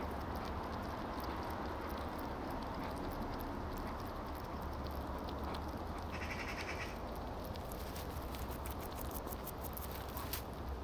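European hedgehogs rustling, scratching and snuffling in the grass close to the microphone. Small clicks and sniffs grow busier near the end as one pushes its snout up to the lens.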